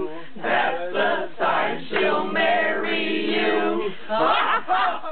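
A group of voices singing a children's song together, unaccompanied, with a long held note about two to four seconds in.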